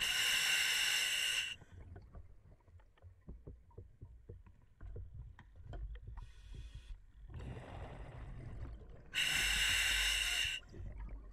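Scuba diver breathing through an Apeks regulator in an OTS Guardian full face mask, underwater: two loud hissing breaths, one at the start and one about nine seconds later, each lasting about a second and a half. Between them come quieter rushing noise and small clicks.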